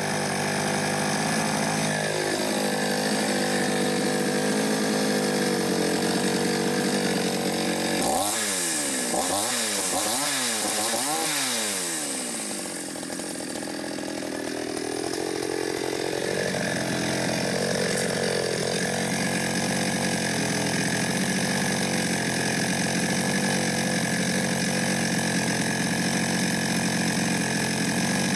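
Mil Germany two-stroke chainsaw running at a steady idle after carburettor idle adjustment. About eight seconds in it is blipped to high revs four or five times in quick succession, and later revved up once more slowly before settling back to idle.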